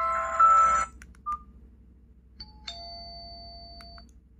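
KGTEL i9 feature phone previewing its message tones while the list is scrolled: a loud two-note electronic chime that stops about a second in, a short keypad beep, then another chime tone held from about two and a half seconds to four seconds.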